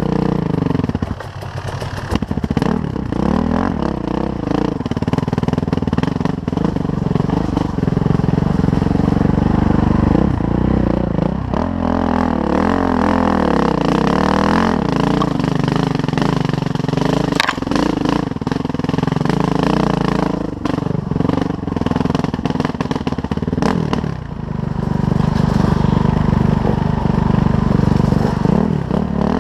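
Suzuki RM-Z450's single-cylinder four-stroke engine revving up and down as the dirt bike is ridden on a trail, with scattered knocks and rattles. It drops off the throttle briefly about a second in.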